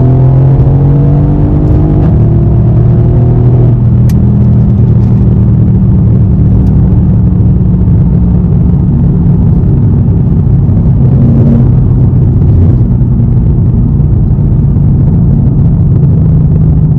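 Mercedes-AMG E63 S twin-turbocharged V8 under full throttle, heard from inside the cabin, its note rising steadily for the first three to four seconds. It then drops to a steady low drone with road noise as the car comes off the pull.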